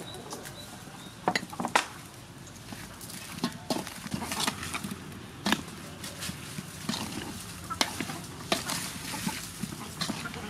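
Meatballs being mixed with sauce and chili flakes in a stainless steel bowl with a wooden spoon: irregular clacks and knocks of the spoon against the bowl.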